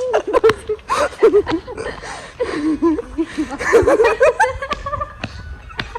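People laughing and giggling, with a drawn-out voice sound about four seconds in.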